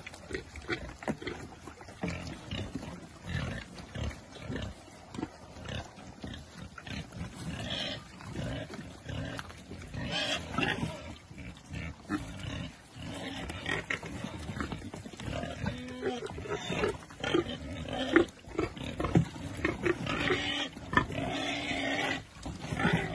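A herd of pigs and piglets grunting and squealing as they feed, with many short chewing and rooting noises. The calls get louder and more frequent in the second half.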